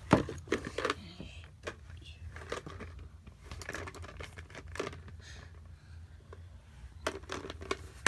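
Handling noise: scattered clicks, taps and rustling as a handheld camera and small toys are moved about, the sharpest click just after the start, over a low steady hum.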